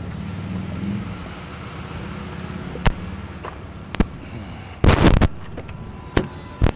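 A steady low vehicle rumble for the first few seconds, followed by single sharp knocks and a loud cluster of thumps about five seconds in, with two more knocks near the end.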